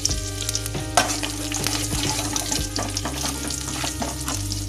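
Tempering of cumin seeds, curry leaves and asafoetida sizzling and crackling in hot oil in a steel kadai, with irregular sharp pops and a spoon stirring, over a steady low hum.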